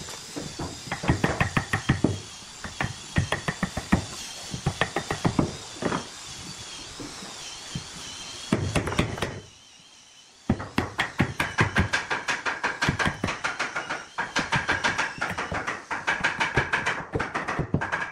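Wooden mallet striking a chisel handle in runs of quick knocks, about three or four a second, driving the blade into a block of wood, with a short break about halfway.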